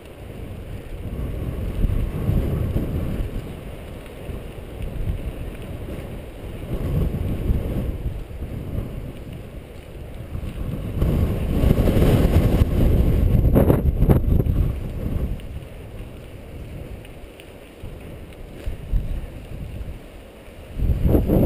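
Wind buffeting a mountain biker's camera microphone as the bike rolls fast over dirt singletrack, with rumble from the trail. It grows louder for a few seconds in the middle, with a couple of sharp knocks.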